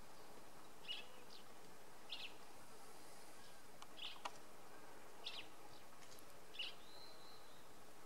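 Quiet dry-forest ambience: a faint steady hiss with a short high chirp repeating five times, one to two seconds apart, and a brief thin whistle near the end.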